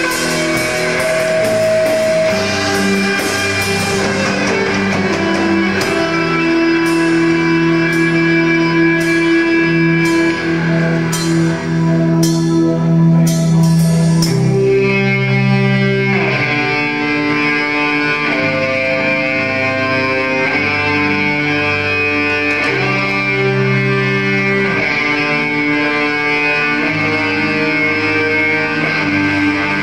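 Rock band playing live: sustained electric guitar chords and drums with repeated cymbal crashes. About halfway through, the cymbals stop and a guitar-led passage of changing chords follows.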